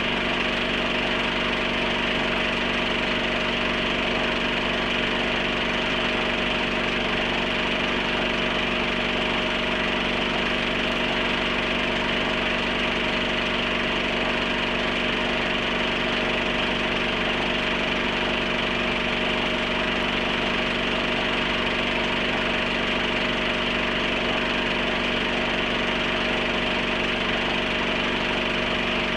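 Film projector running: a steady mechanical whir with a constant hum that does not change.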